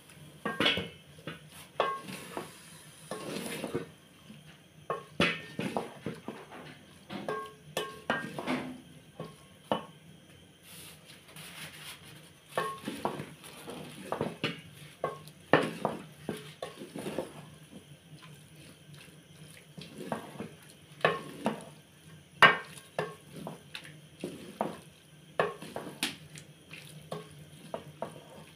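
Wooden cooking stick stirring food in an aluminium pot, with irregular scrapes and knocks of the stick against the pot.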